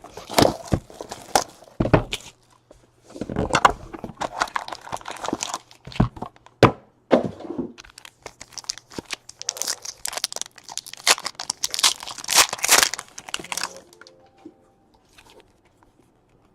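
Trading-card pack wrappers being torn open and crinkled, with cards and packaging handled, in a run of irregular crackling and tearing that stops a couple of seconds before the end.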